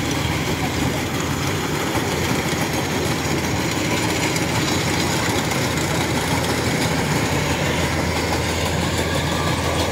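Kubota DC-105X rice combine harvester running steadily while cutting and threshing, a constant engine hum under a dense machinery clatter, growing a little louder as it comes closer.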